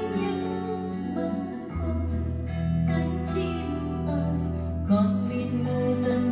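A song playing back from cassette on a Pioneer T-9090WRII double cassette deck. Its sustained bass notes change twice, a little under two seconds in and again near five seconds.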